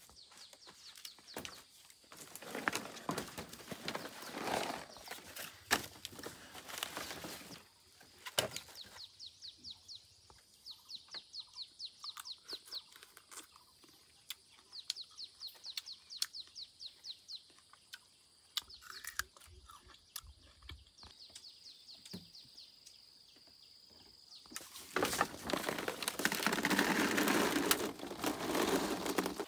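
Runs of short, high bird chirps repeated about five a second, between two loud bursts of rustling noise.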